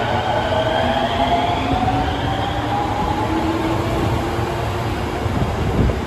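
Osaka Metro Yotsubashi Line subway train pulling out of the station: an electric whine that climbs in pitch over the first few seconds as the train accelerates, over a steady rumble of the cars on the rails.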